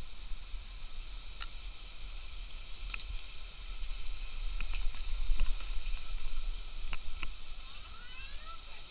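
Handling noise on a moving camera: a low rumble with a few sharp clicks and taps spread through, and a few short rising chirps near the end.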